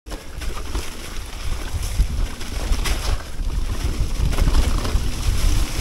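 Wind rumbling on the microphone of a mountain bike descending a leaf-covered dirt trail, with the tyres rolling over leaves and dirt and scattered short knocks and rattles from the bike.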